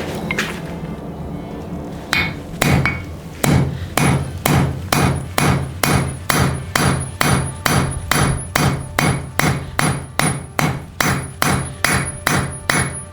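Blacksmith's hammer striking a hot 1/4-inch mild steel bar over the corner of an anvil, about two even blows a second with a bright ring after each: necking down a shoulder to start a fiddlehead scroll. The blows begin about two seconds in.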